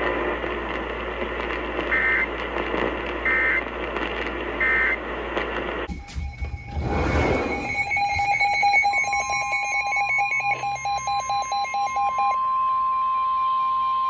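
AM radio static with three short high beeps. Then several NOAA weather alert radios go off together for a flash flood warning: a rapid pulsing alert beep and the steady single-pitch weather radio warning alarm tone, which cuts off abruptly.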